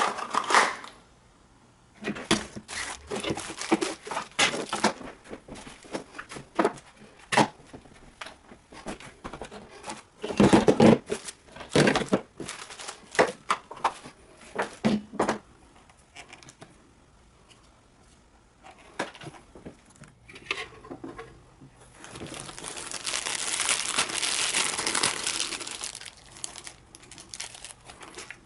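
Crinkling and rustling from things being handled, with scattered knocks and clicks and a few seconds of steadier rustling near the end.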